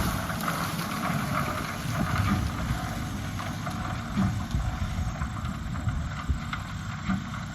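Lime spreader rig running steadily in the field, an engine drone with wind buffeting the microphone.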